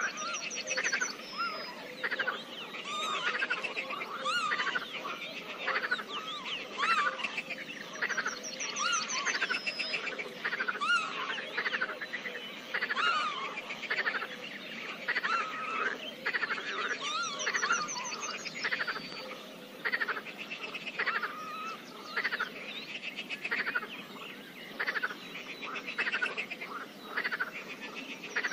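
A pond chorus of frogs croaking, many calls overlapping without pause. A higher, rapid trill cuts in about every eight seconds.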